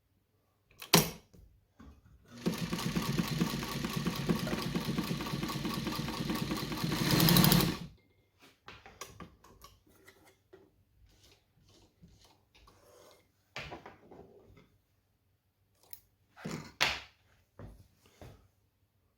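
New Home Paragon class 15 straight-stitch sewing machine running at speed for about five seconds, getting louder just before it stops. A sharp knock comes before it, and a few clicks and knocks follow.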